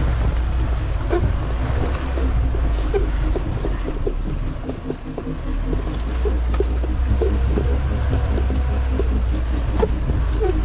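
Off-road vehicle's engine running with a steady low rumble, with frequent knocks and rattles from the body and suspension as it drives over rough ground.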